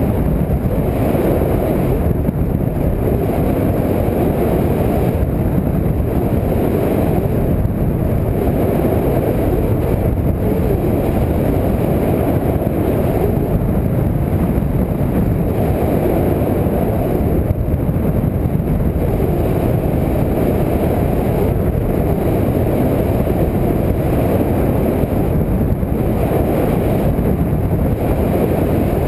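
Steady rushing of air and motor-and-propeller noise picked up by the onboard camera of an RC plane in flight, with a slight swell and fade every few seconds.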